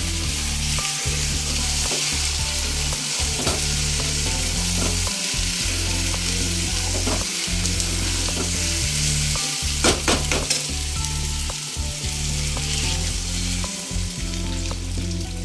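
Fish and pointed-gourd masala sizzling in a kadhai while a metal spatula stirs and scrapes through it, with a few sharp knocks of the spatula against the pan about ten seconds in. Near the end water is poured into the pan. A steady low hum runs underneath.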